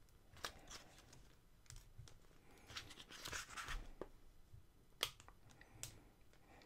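Faint rustling of a paperback manga volume's paper pages being opened and leafed through by hand, with a few light clicks and taps; the longest rustle comes about three seconds in.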